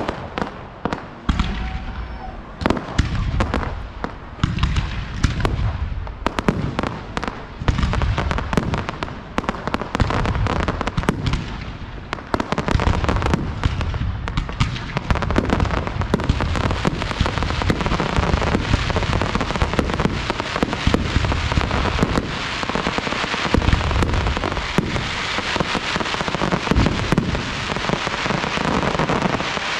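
Professional fireworks display: a dense run of sharp bangs and deep thumps, several a second, with a thick steady hiss building beneath them from about halfway through.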